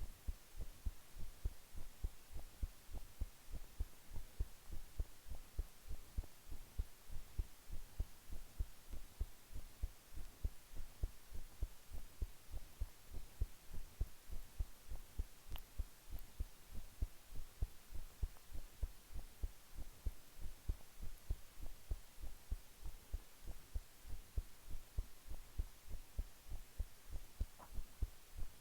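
Human heart beating at rest: a steady, regular rhythm of low, soft thumps.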